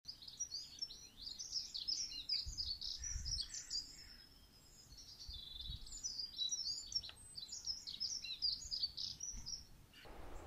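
Small songbirds singing in quick, busy chirps and warbles, with a pause about halfway through.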